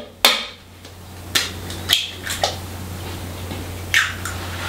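An egg cracked sharply against the rim of a mixing bowl, then a few fainter clicks and crackles as the shell is pulled apart and the egg dropped into the bowl.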